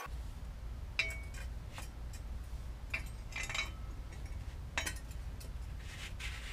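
Small metal bicycle parts clinking and knocking together as they are handled, about half a dozen separate clinks, over a steady low rumble.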